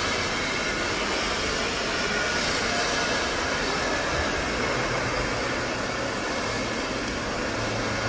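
Steady mechanical rumble and hiss of a heavy steel fabrication shop.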